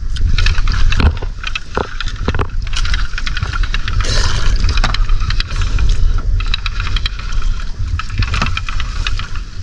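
Sea water splashing and lapping against an outrigger boat's hull while a fishing net is hauled aboard over the bamboo rail, with irregular clicks and scrapes from the net and a steady low rumble underneath.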